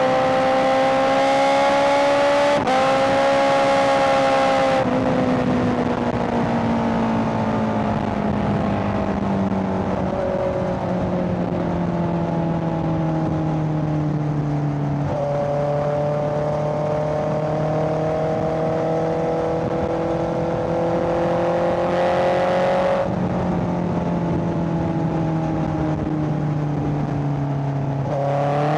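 Honda CBR650R's inline-four engine under way: its pitch climbs with a brief break for a gear change about two and a half seconds in, falls slowly for several seconds, then climbs again before dropping back a few seconds before the end.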